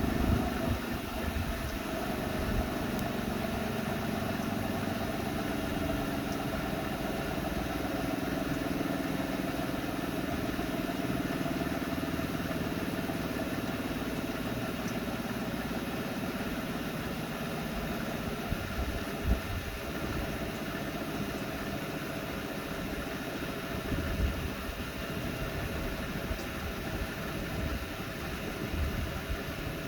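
Front-loading washing machine on its 1400 rpm final spin: a steady motor whine and drum rumble, with a couple of brief knocks about two-thirds of the way through.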